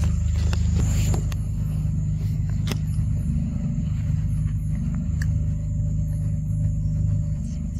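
A low, steady rumble with a few faint, scattered clicks.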